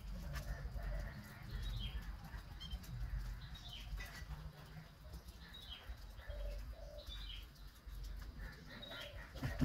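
Wild birds chirping at dusk: short, falling high chirps repeated every second or so, with a few lower calls, over a low steady rumble. A sharp thump at the very end.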